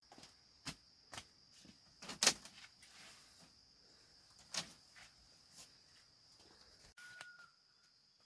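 Steady high chirring of crickets, with scattered sharp knocks and clicks from bamboo being worked by hand. The loudest knock comes a little over two seconds in. A brief high tone sounds near the end.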